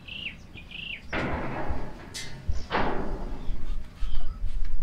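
Spray bottle of antibacterial solution hissing in two bursts, about a second in and just under three seconds in, onto a calf's scabby rain-scald patches. Birds chirp at the start, and a few dull knocks come from the steel cattle crush.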